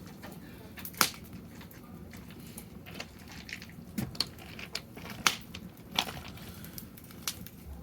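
Firewood burning in a fire pit, crackling with sharp, irregular pops over a low background hiss; the loudest cracks come about a second in and just past five seconds.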